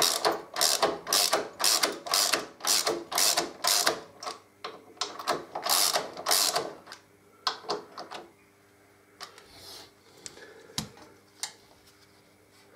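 Socket ratchet clicking in quick back-and-forth strokes, about three a second, as it takes up the swingarm mount's top adjuster bolt. The strokes stop about seven seconds in, leaving a few faint ticks.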